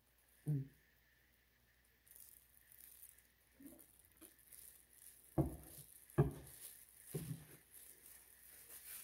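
Quiet handling sounds from a palette knife and a plastic-gloved hand working paint on a canvas: faint rustling with a few dull low knocks, the loudest two a little past the middle.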